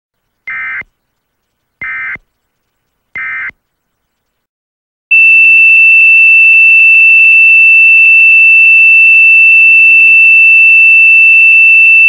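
Three short warbling digital data bursts about a second apart, the end-of-message code of an Emergency Alert System broadcast. After a brief silence a loud, steady, high-pitched test tone comes on, with faint hiss and hum beneath it.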